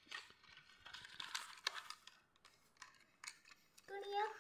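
Faint scratchy strokes of colouring on paper, with a few light clicks, in the first half. Near the end a girl starts humming a tune.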